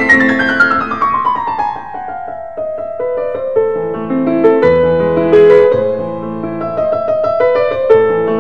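Piano background music: a quick run of notes falling in pitch over the first couple of seconds, then slower chords with low bass notes.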